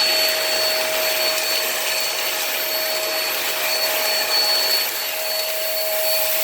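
Hoover React Professional Pet cordless stick vacuum running steadily over cat litter on a hard floor: a high, even motor whine over the rush of suction.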